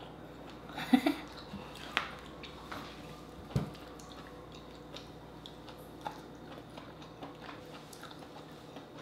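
Close-miked eating sounds: chewing and mouth noises with scattered small clicks and taps as king crab meat is eaten. The sharpest click comes about a second in, and a low thump follows about three and a half seconds in.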